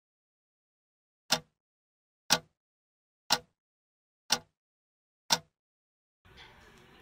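Clock-ticking sound effect: five sharp ticks, evenly one a second, over total silence. Faint room tone comes in near the end.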